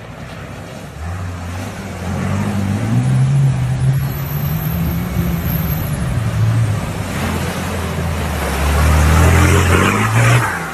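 A snorkelled 4x4 ute's engine pulls steadily through a flooded creek crossing, with water rushing and splashing around the wheels. Both get louder as it passes close by near the end.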